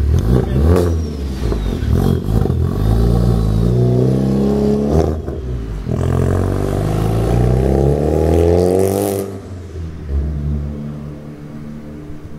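Honda Civic Type R's turbocharged four-cylinder accelerating hard away. The revs climb through one gear, break briefly for an upshift about five seconds in, climb again, then fade as the car drives off.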